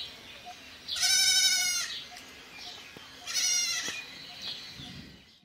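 A goat bleating twice, two wavering cries about two seconds apart, the second one shorter.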